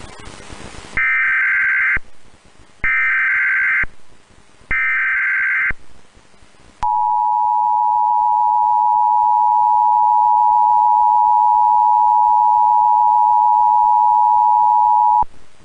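Emergency Alert System Required Monthly Test signal: after a brief hiss, three one-second bursts of SAME digital header data tones sound, evenly spaced. About seven seconds in, the EAS two-tone attention signal (853 and 960 Hz together) starts and holds steady for about eight seconds, then cuts off.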